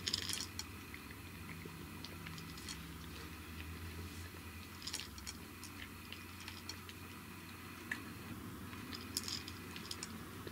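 Brown tabby cat crunching dry kibble from a bowl: crisp chewing clicks that come in clusters, loudest right at the start, again about five seconds in and near the end.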